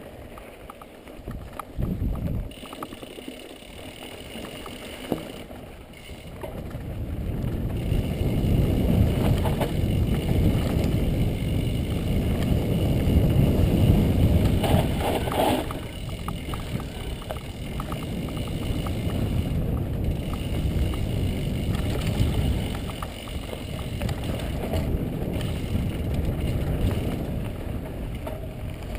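Wind buffeting the microphone of a camera riding a mountain bike down a dirt forest trail, with the rattle and knocks of the bike over the ground; the rumble builds from about a quarter of the way in as speed picks up, then eases a little.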